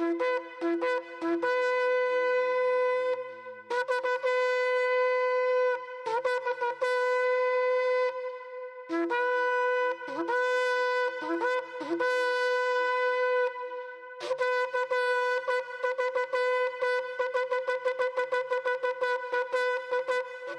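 A shofar being blown in a series of calls, jumping between a lower and a higher note. Choppy short blasts give way to long held notes, then a rapid run of short blasts, several a second, in the last third.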